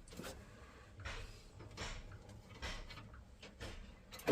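Faint scattered clicks, taps and scrapes of hands and a screwdriver working on small boiler parts.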